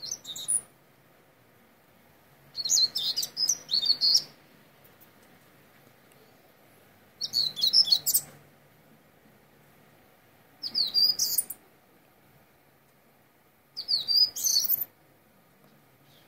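Common starling singing in five short phrases of chattering chirps and whistles, a few seconds apart.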